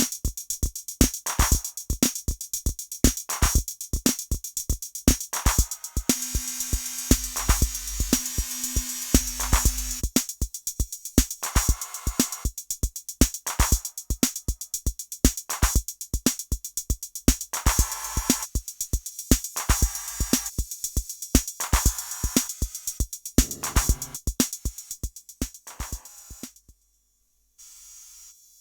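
Electronic drum machine beat with kick drum, about three hits a second, run through Ableton Live 11's Spectral Time spectral delay effect. A held tone sounds for a few seconds in the middle. The beat cuts off suddenly near the end, leaving only a faint tail.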